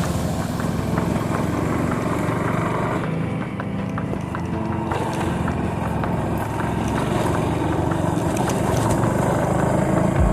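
Small motorcycle engine running steadily under way, with scattered short clicks and rattles over it.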